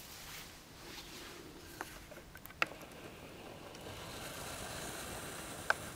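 Faint room noise with a few light, sharp clicks.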